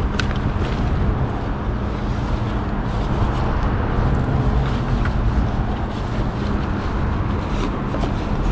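Rustling and soft clicks of a fabric bag and its zipper and buckles being handled by gloved hands, over a steady low rumble with a faint hum.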